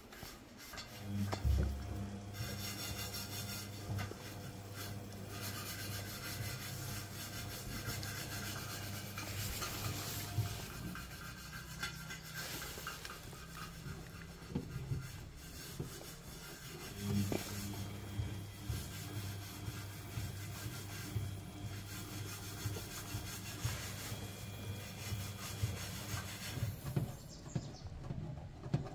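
Samsung front-loading washing machine tumbling its wash load, with the drum motor humming and water and laundry sloshing. The drum runs for about ten seconds, pauses for several seconds, then runs again, as a front-loader does during the wash phase.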